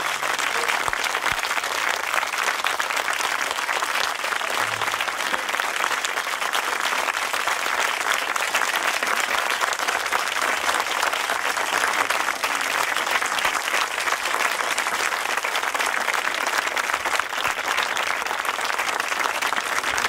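A concert audience applauding, dense and steady throughout; a last low held note of the ensemble dies away in the first second.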